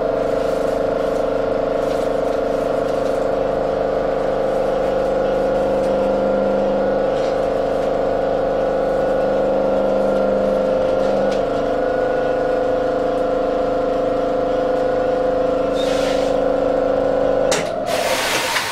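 Stationary tram's onboard electrical equipment humming steadily, heard inside the car. Near the end the hum cuts off with a click and a broad rushing hiss starts.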